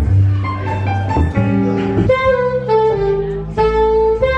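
Live jazz: a saxophone plays a melody of held notes, stepping down in pitch about halfway through, over an upright double bass.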